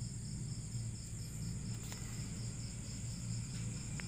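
Steady, evenly pulsing high-pitched insect chirring over a low hum, with one faint tap about two seconds in.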